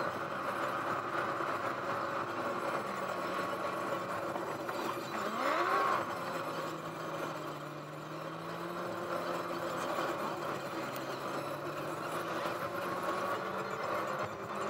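Car engine and road noise heard from inside the cabin as the car drives along. The engine note rises sharply for a moment about five seconds in, then settles and drifts slowly up and down.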